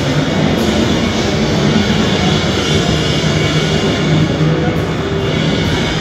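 Loud, dense music playing over a venue's sound system during a sound check, steady throughout with a strong low end.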